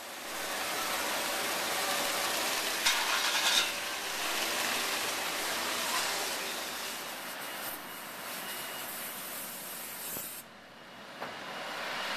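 Loud steady hiss of spraying steam and water with machinery running, with a few louder gushes about three seconds in. It drops off sharply about ten seconds in, then the hiss of a steam cleaner's nozzle swells again near the end.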